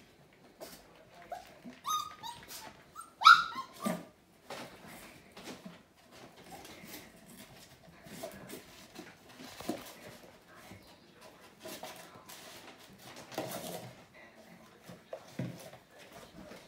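Young puppies, about five and a half weeks old, giving a few high-pitched yips about two to three seconds in, the loudest a sharp yelp. After that come scattered light clicks and patters, like small paws and claws on a tile floor.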